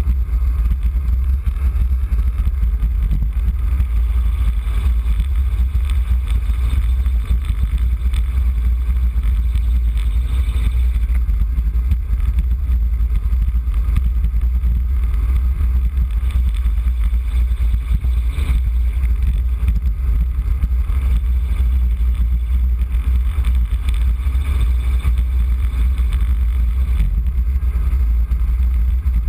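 Wind buffeting the microphone of a camera on a road bike descending at speed: a steady low rumble over a fainter hiss.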